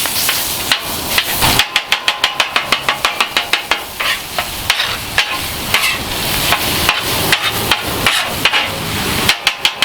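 Breakfast sausage sizzling on the steel top of a Blackstone griddle while a metal spatula chops it up. The chopping is a fast clacking of about five strikes a second that starts a second and a half in.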